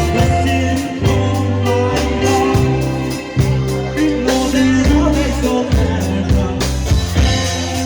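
A singer's voice with band accompaniment: bass, guitar and a steady beat.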